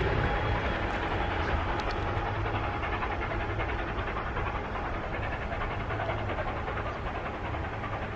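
A passing train heard rumbling on the rails as it draws away, the steady rumble slowly fading.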